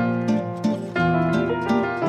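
Instrumental background music of plucked string notes, harp-like, in a quick even succession over lower sustained notes.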